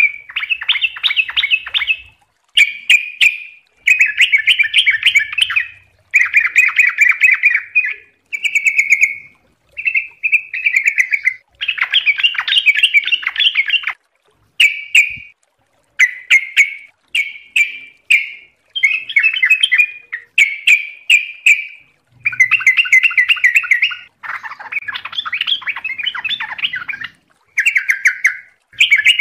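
Caged yellow-vented bulbul (trucukan) singing steadily: a run of rapid, bubbly warbling phrases, each a second or two long, repeated with short pauses between them.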